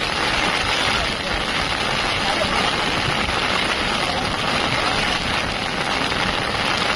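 Steady, loud rushing of floodwater pouring across a road, with a vehicle engine running beneath it.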